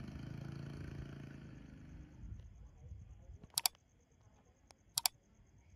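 A cat's low, drawn-out growl that fades away over the first two seconds, then two sharp mouse clicks about a second and a half apart from a like-and-subscribe button animation.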